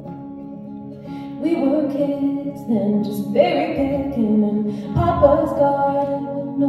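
A woman singing to her own acoustic guitar. A held guitar chord rings at first, and her voice comes in about a second and a half in.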